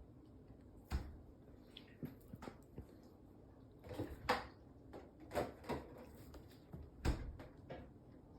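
Irregular soft knocks, taps and rustles, about a dozen over several seconds, the sharpest thumps about a second in and near the end: a pet cat batting at and pouncing on a teaser toy.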